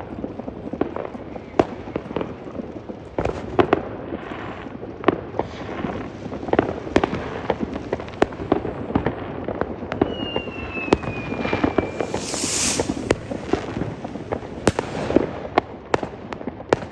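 Fireworks and firecrackers going off, with many sharp bangs and cracks at irregular intervals. A rocket's falling whistle comes about ten seconds in, followed by a loud hissing burst.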